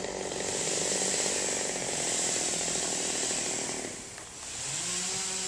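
Small gasoline engine of tree-removal equipment running hard under load. It drops off for a moment about four seconds in, then revs back up.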